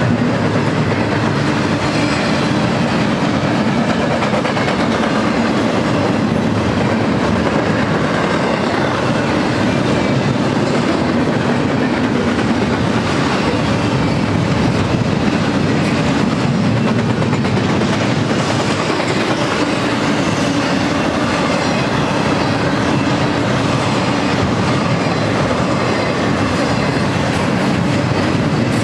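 Loud, steady rolling noise of a double-stack intermodal train's steel wheels on the rails as its container well cars pass close by, with frequent clacks of wheels over the rail.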